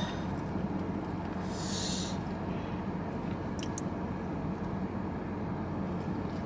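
Steady low rumble inside a car, with a brief rustle of a plastic sushi container about two seconds in and a couple of small clicks a little later.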